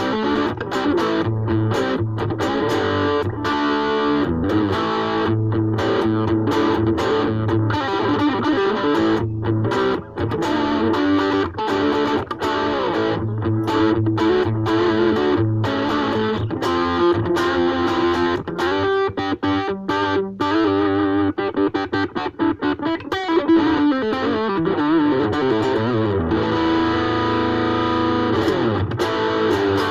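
Ibanez AXS42 electric guitar fitted with a vintage tone capacitor, played with distortion: continuous picked riffs and held chords, with some notes bent or slid in pitch past the middle.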